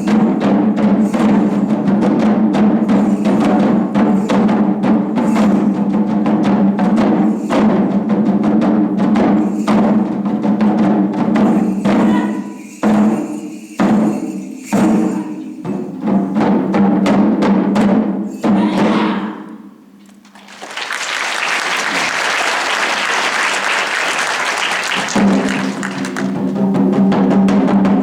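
Japanese taiko drums played in rapid, dense strokes over a steady low sustained tone. About twenty seconds in, the drumming breaks off and a few seconds of dense rushing noise follow before the drums and tone come back in.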